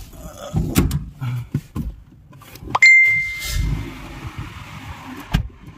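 A Suzuki car being started from inside the cabin: a few knocks, then a sharp click and a single ding that rings for about half a second, followed by the engine starting with a low rumble.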